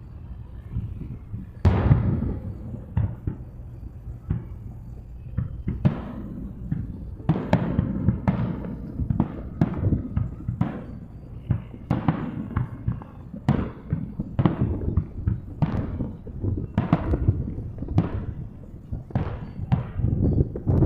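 Aerial fireworks shells bursting one after another, each a sharp boom with a low rumble behind it, coming more and more often after the first few seconds.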